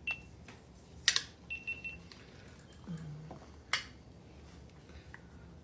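A few sharp clicks and taps, the loudest about a second in, with two short, steady high beeps and a brief low sound about three seconds in.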